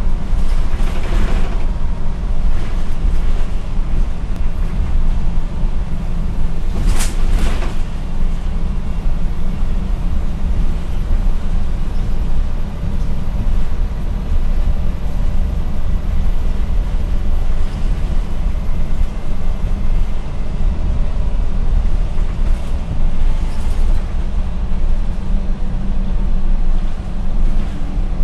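Steady low drone inside a MAN NL243 CNG low-floor city bus under way: its compressed-natural-gas engine and drivetrain running, with road and tyre noise. A brief sharp noise about seven seconds in.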